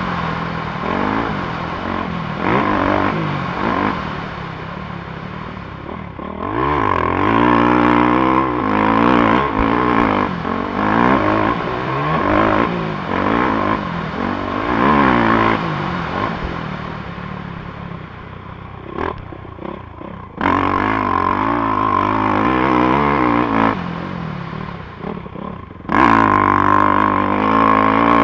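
450 cc four-stroke dirt bike engine being ridden hard, revving up and falling back again and again as the rider works the throttle and gears. Twice near the end the throttle closes, the engine note sags, and it snaps back open with a sudden loud surge.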